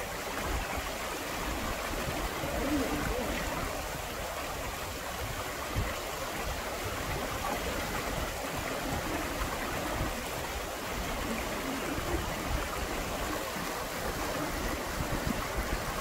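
Mountain stream flowing steadily, water spilling over rock into a clear pool.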